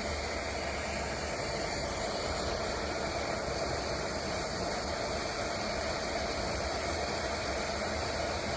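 Small butane microflame torch burning with a steady hiss while heating a solder join.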